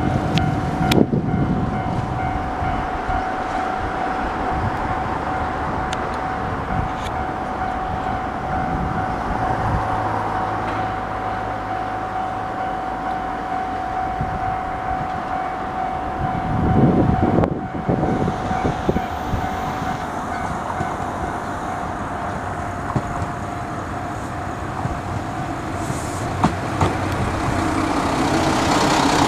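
KiRo 185-series diesel railcar train approaching and pulling into a station: engine and wheel-on-rail noise that grows louder near the end. A steady high tone sounds through the first half and stops about halfway through.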